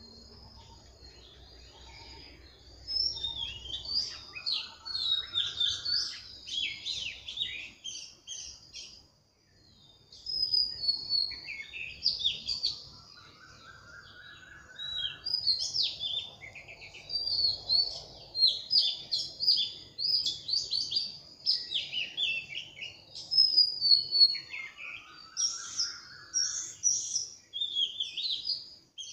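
Birds chirping and singing in quick, busy phrases of high trills, with a short break about nine seconds in.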